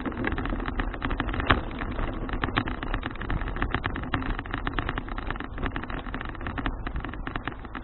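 Riding noise picked up by an action camera on a moving folding bicycle: steady wind buffeting and road rumble with a dense rattle of small knocks from the bike and camera mount.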